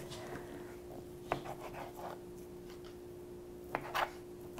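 Kitchen knife slicing cooked rotisserie chicken breast on a cutting board: quiet cutting and rubbing sounds, with a few light taps of the blade against the board, over a faint steady hum.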